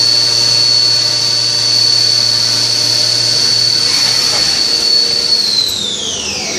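Leadwell V-50L vertical machining centre's spindle whining steadily at high speed while the cutter mills aluminium under flood coolant. The cutting stops about four seconds in, and near the end the spindle's whine falls in pitch as it slows down.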